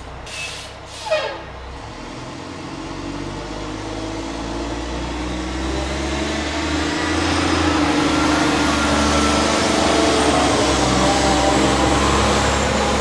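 McNeilus Pacific front-loader garbage truck pulling away and driving past, its engine growing steadily louder as it accelerates. Two short hisses about a second in, the second with a falling tone.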